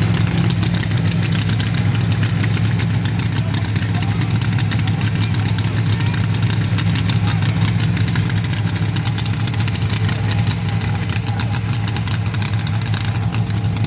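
Alcohol dragster's engine idling, loud and steady, with a rapid, even patter of exhaust pulses.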